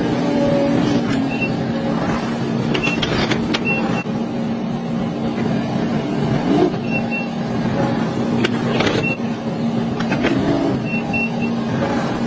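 Machinery running steadily with a low hum, and short high beeps every second or two, often two or three in a row, over occasional sharp clicks.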